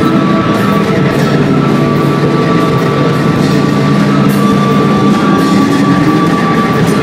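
Live rock band playing loud, dense music: electric guitar and drum kit with long held notes droning through.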